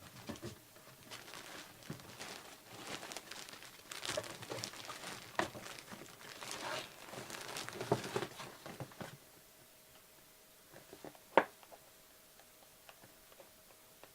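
Packaging crinkling and tearing in irregular bursts as a trading-card package is opened by hand, for about nine seconds; then it goes quiet apart from one sharp click about eleven seconds in.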